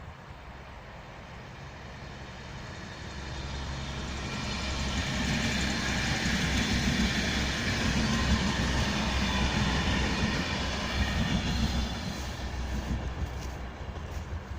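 A train passing on the tracks: it grows louder over about five seconds, stays loud for several seconds, then fades.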